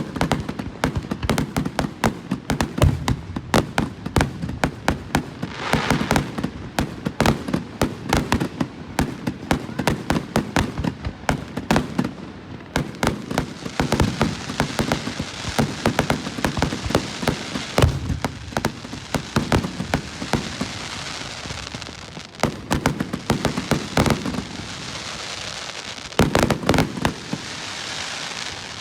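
Fireworks going off in a rapid barrage: many bangs and pops a second, with stretches of dense crackling in the second half.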